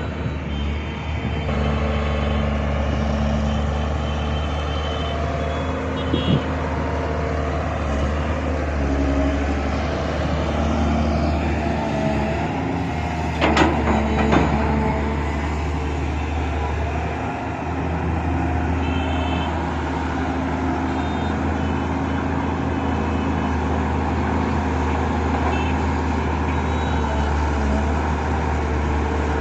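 Excavator's diesel engine running steadily under load, with a few metallic clanks, the loudest cluster about halfway through.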